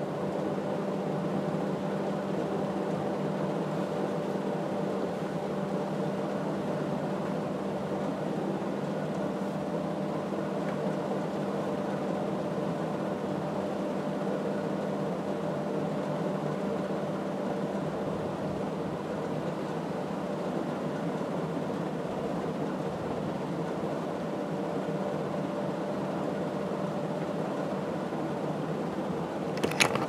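Fasco Heat Cycler industrial ceiling fan running steadily on its high speed: an even rush of air from the blades over a low, steady motor hum. A few clicks near the end.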